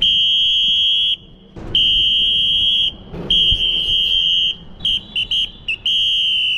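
Electronic warning buzzer sounding a high, steady beep: three long beeps of about a second each, then a quick run of short blips, then another long beep.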